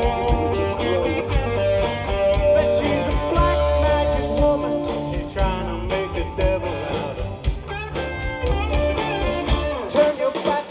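Rock band music with electric guitar, drums and a singing voice, on a steady beat.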